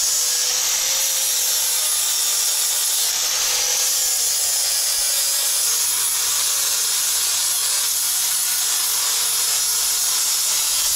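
Angle grinder working steel, a steady, loud grinding hiss with a slightly wavering motor pitch, as the surface on a trailer brake assembly is ground clean for welding.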